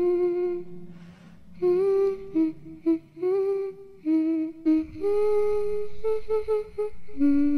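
A girl's voice humming a slow lullaby-like tune in long held notes with short breaks between them.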